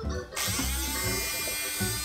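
Small hobby motors spin up a 3D-printed airsoft flywheel and gear assembly, starting suddenly about a third of a second in. The whine rises in pitch briefly, then runs steady, with the printed plastic gears whirring.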